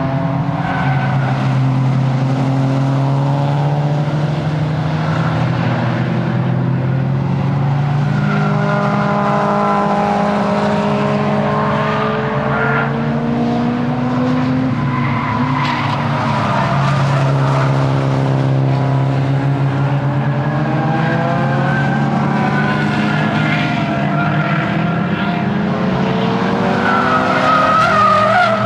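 Nissan S15 Silvia engine driven hard around a circuit, its revs repeatedly climbing and falling with gear changes and braking, with tyres squealing in places.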